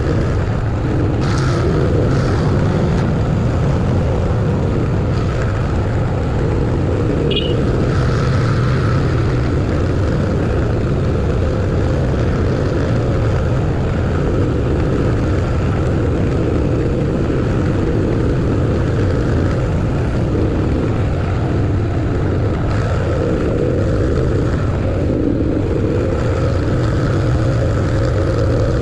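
Vehicle driving along a road: steady engine and tyre noise that holds at a constant loudness, with a brief high chirp about seven seconds in.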